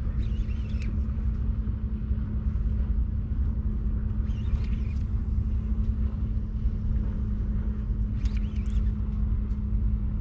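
Boat engine running steadily: a low rumble with a constant hum. Three brief, fainter high-pitched sounds come about a quarter second, four and a half seconds and eight and a half seconds in.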